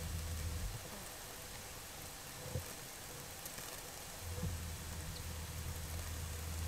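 Homemade irrigation sprinklers spraying, a steady rain-like hiss of water falling on the crop. A low rumble comes in at the very start and again from about four seconds in.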